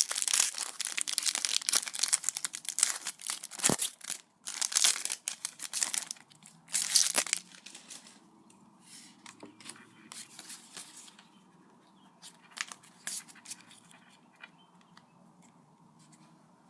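Foil Pokémon booster pack being torn open and crinkled, loud for the first seven seconds or so, then giving way to faint scattered clicks and rustles of handling.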